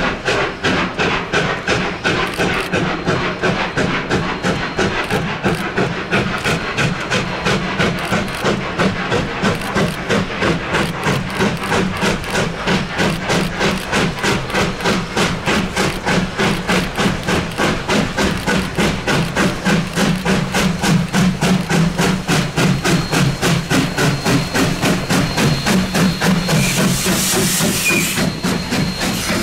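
Narrow-gauge steam locomotive working hard, its exhaust chuffing in a quick, even rhythm over a steady hiss of steam. A louder burst of hiss comes near the end.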